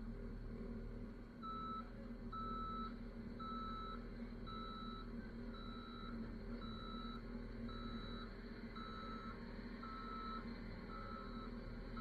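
Caterpillar wheel loader backing up: its reverse alarm beeps about once a second, starting about a second and a half in, over the steady running of its diesel engine.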